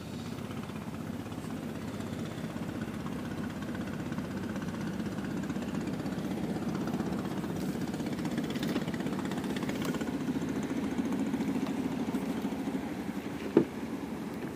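A boat engine running steadily with an even low pulsing hum, growing a little louder partway through. Near the end there is a single short knock.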